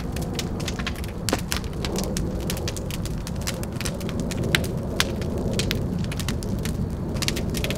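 A house fire crackling and popping: irregular sharp snaps, several a second, over a steady low rumble.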